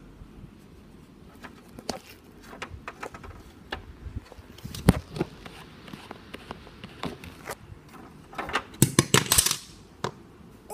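Handling noise: scattered light clicks and knocks of small toys and a toy dollhouse being moved about, with a quick run of louder knocks and rattles near the end.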